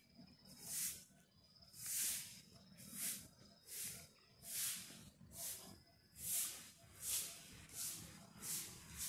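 Broom sweeping a paved courtyard: about ten rhythmic swishing strokes, each swelling and fading, roughly one every second. A faint steady high-pitched tone runs underneath.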